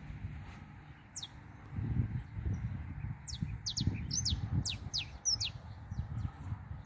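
Wild birds chirping: a run of quick, high notes that each sweep downward, thickest between about three and five seconds in. Under them runs an uneven low rumble.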